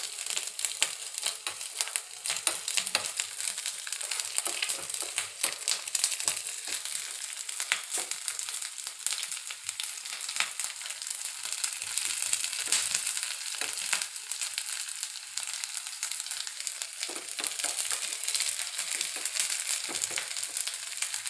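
Diced coconut sizzling in a spoonful of hot oil in a small aluminium kadai, with frequent small crackles, stirred now and then with a metal spoon. The coconut is being roasted until golden.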